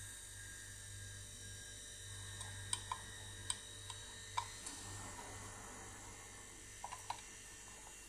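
Refrigerator compressor running with a steady low hum during gas charging. A few light clicks, some in quick pairs, come from handling the brass manifold gauge set.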